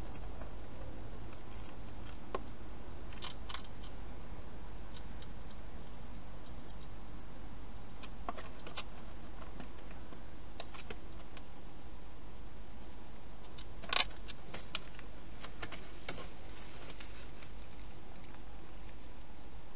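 Wild hedgehog eating and moving about inside a clear plastic feeding box: scattered small crunches and clicks, a sharper cluster about fourteen seconds in, over a steady low hiss.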